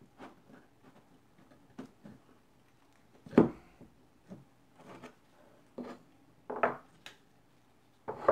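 Small wooden aging cask being handled on a desk: scattered wooden knocks and rubbing as it is worked on by hand, with the loudest knock about three and a half seconds in. Near the end comes another knock as the cask goes onto its wooden stand.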